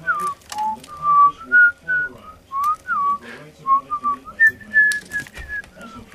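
A person whistling a tune of short notes that slide between pitches, with scattered sharp clicks and taps.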